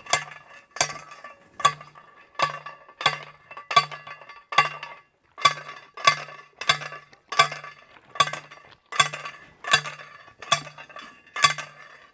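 Steel fence T-post being pounded into the ground: a steady run of about seventeen ringing metal-on-metal clanks, roughly one every 0.7 s.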